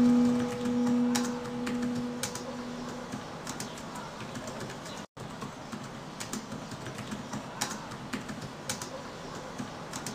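Keys being tapped on a computer keyboard: scattered sharp clicks, one or two a second. A held ringing tone fades away over the first few seconds, and the sound cuts out briefly about halfway.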